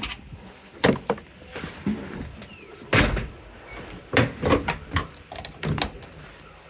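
A house door being handled: a run of knocks and clunks, the loudest about three seconds in.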